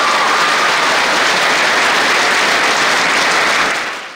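Audience applauding, a dense steady clapping that fades out quickly near the end.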